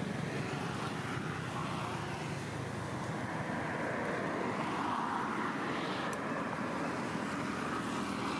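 A motor vehicle passing: a steady rumble that swells about halfway through and then fades.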